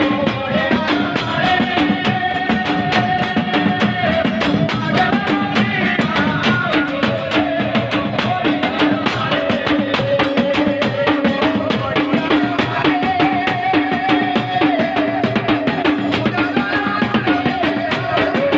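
Gujarati folk devotional music from a jagar: fast, dense drumming under a held, ornamented melody line that slides between pitches.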